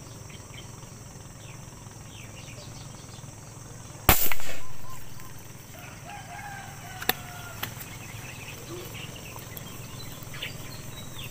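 A fishing spear is shot into a shallow pond about four seconds in: one sudden loud snap and splash that fades over about a second, followed by two light clicks a few seconds later. Insects drone steadily in the background.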